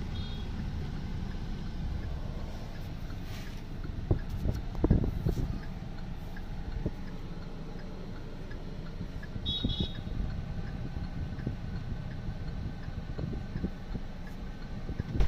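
Low, steady rumble of a running car heard inside its cabin, with a few knocks and bumps about four to five seconds in and a brief high chirp near ten seconds.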